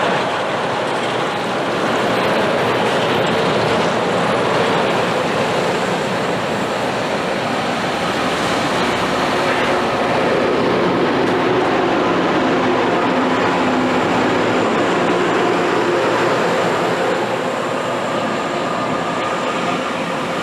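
Loram rail grinder train running past: a loud, steady rushing noise from the train on the rails, with low engine tones coming in about halfway through.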